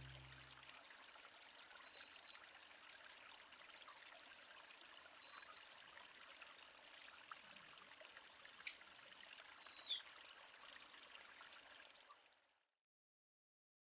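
Faint outdoor background hiss with a few short, high chirps and clicks scattered through it, after the tail of background music fades out at the start. It cuts to silence near the end.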